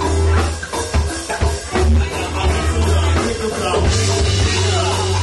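Live band music: drum kit, electric guitar and a heavy bass line, with vocals over the top.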